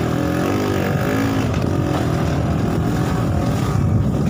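Bajaj M80's small single-cylinder engine running under way on a rough dirt trail, its pitch wavering up and down with the throttle in the first second or so, then steady.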